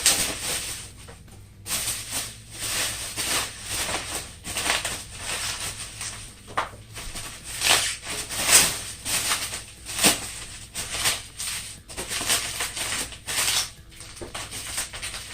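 Bubble wrap and plastic packaging crinkling and rustling as it is pulled off by hand, in irregular fits and starts.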